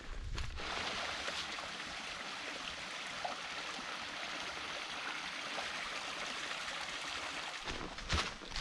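A small stream or brook running steadily over rocks, a constant rushing trickle that starts about half a second in and fades near the end, when footsteps on a trail come back.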